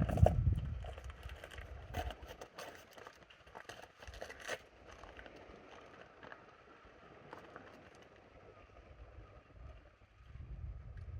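Wind buffeting the microphone in gusts: a low rumble that dies away about a second in and comes back near the end. In between there is only a faint hiss with a few light clicks.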